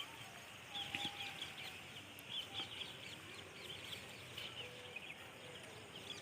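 Faint bird calls: many short, high chirps repeating throughout, with a couple of faint longer, lower notes.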